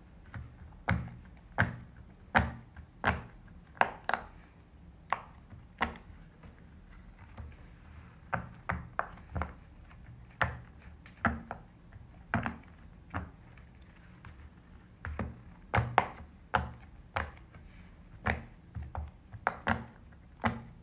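Silicone pop-it fidget toy bubbles being pushed through one after another, each giving a sharp pop, about one a second with a few quicker runs.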